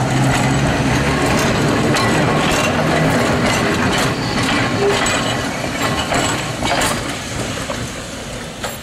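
Manx Electric Railway open crossbench tramcar No. 32 running past close by: steel wheels rolling on the rails with a dense rattle and irregular sharp knocks, fading away over the last two seconds or so.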